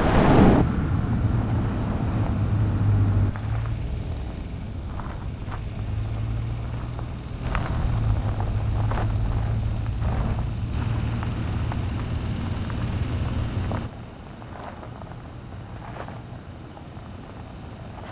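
Porsche Cayenne SUV driving off-road: a brief loud burst at the start, then the engine running at a steady low note with scattered sharp clicks. The sound drops quieter about 14 seconds in.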